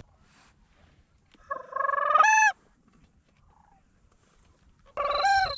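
Sandhill crane calls: two loud rolling, trilled calls, the first about a second and a half in and lasting about a second, the second near the end, each rising in pitch at its close.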